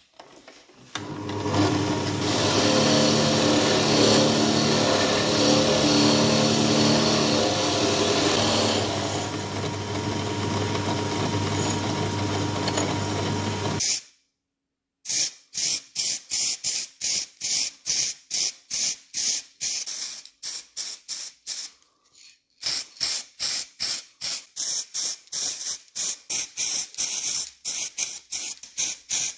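A small electric motor runs steadily with a low hum and a hiss, then cuts off suddenly about halfway through. Short hissing bursts of spray follow, about three a second, with a brief pause in between.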